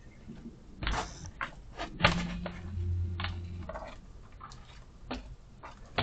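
Scattered knocks and scratchy clicks of a chicken's feet stepping down a wooden ramp, with one loud knock about two seconds in. A low hum follows for about a second.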